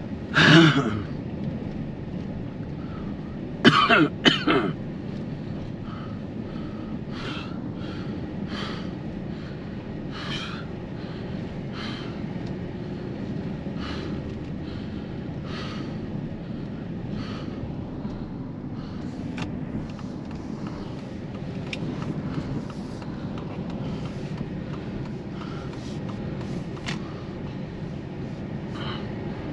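A person coughs once about half a second in, then coughs again in a quick run of three or four near four seconds. A steady low rumble runs underneath.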